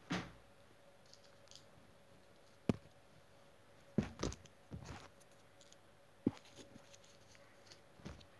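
Handling noise from hands moving small objects close to the microphone: a handful of separate light clicks and knocks, the sharpest near the start, about a third of the way in and three-quarters through, over a faint steady hum.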